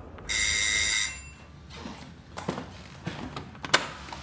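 An electric doorbell rings once, a steady ring of under a second, followed by a few clicks and knocks as the front door is unlocked and opened.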